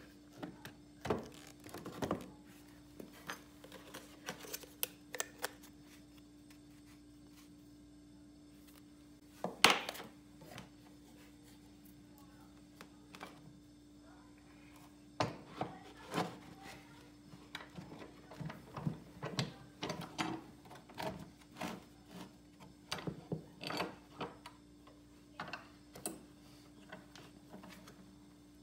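Scattered light knocks and clicks from handling a cordless drill and a thick oak barrel head on a plywood workbench, with one sharper knock about a third of the way in, over a steady low hum. The drill is not running.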